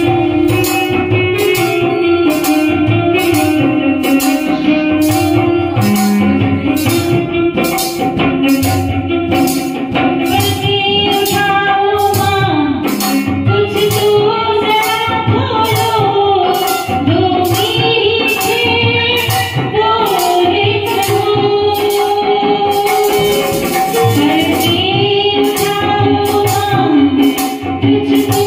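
Live Hindi devotional song (bhajan) sung by a woman through a microphone, over a steady jingling percussion beat and accompanying instruments.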